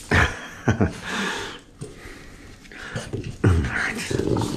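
French bulldog making short, sudden excited play vocalizations: snorting grunts and growly yelps, several about a second in and a longer run from about three and a half seconds in.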